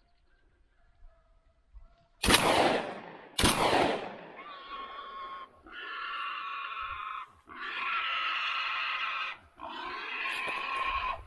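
Two shotgun shots about a second apart, the loudest sounds here, then a wild boar squealing in four long, drawn-out cries with short breaks between them.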